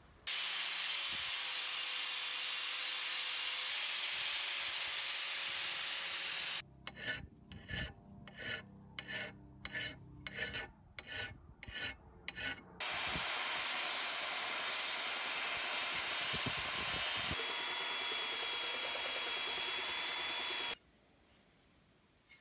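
A strip of abrasive cloth pulled back and forth around a wooden axe handle, shoeshine-style, in even strokes of about two a second. Steady hissing noise runs before and after the strokes and cuts off suddenly near the end.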